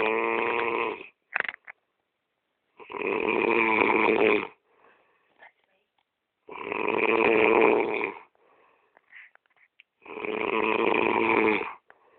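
A man snoring heavily, one long pitched snore about every three and a half seconds, four in all, with faint breathy sounds between them.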